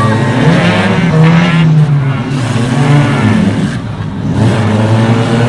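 Banger racing cars' engines running and revving, the pitch rising and falling as the throttle is worked.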